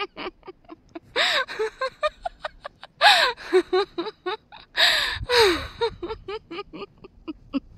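A woman laughing heartily, a victory laugh: quick runs of 'ha-ha' pulses broken by several loud, gasping in-breaths.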